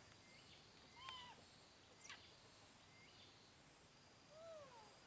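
Near quiet, broken by a few faint animal calls: quick high chirps about one and two seconds in, and short arching calls, one about a second in and a lower one near the end.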